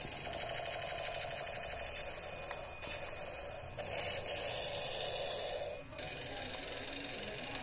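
Battery-powered transforming robot-tank toy running, its small motor whirring and its speaker playing tinny electronic sound effects as it converts from robot into tank.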